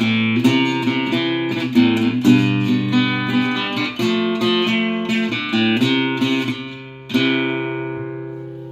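Solo acoustic guitar playing the closing bars of a song, picked and strummed chords. About seven seconds in, a last strummed chord rings out and slowly fades.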